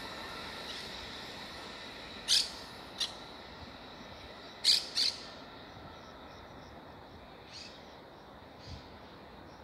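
Frecciarossa high-speed train's running noise fading away as it recedes. Over it come short, sharp bird chirps: a pair about two seconds in, a louder pair near the five-second mark, and two fainter ones near the end.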